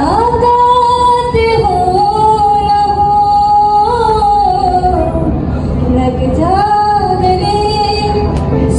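A woman singing into a microphone over a PA, holding long notes that bend slightly in pitch. She breaks off about five seconds in and starts a new phrase about a second later.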